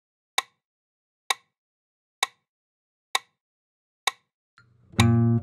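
Metronome clicking steadily, five ticks a little under a second apart with silence between. Near the end a classical guitar begins playing, starting a descending-slur (pull-off) exercise.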